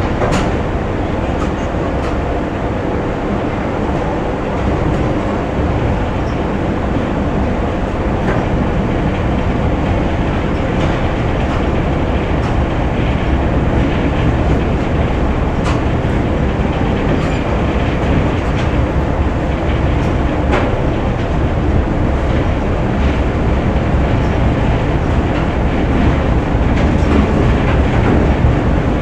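Factory machinery running: a steady, loud rumble, heaviest in the low end, with occasional short clicks and knocks.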